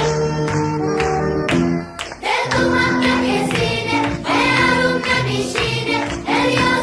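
Background music: an instrumental passage with regular percussive strikes, then, after a brief dip about two seconds in, voices singing together over the accompaniment.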